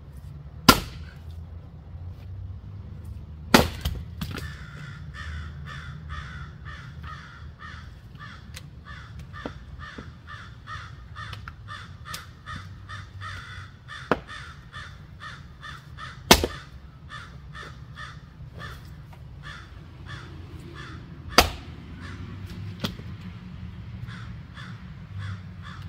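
Sharp blows of a splitting tool striking wet, stringy firewood rounds: about four loud strikes and a few lighter ones, several seconds apart. Behind them a bird calls in a rapid series of short notes, about three a second, starting a few seconds in.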